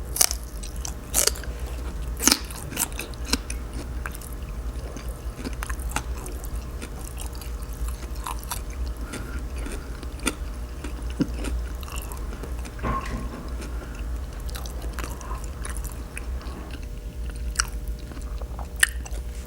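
Close-miked chewing of crisp raw radish: sharp crunches, loudest in the first few seconds, then softer, scattered chewing.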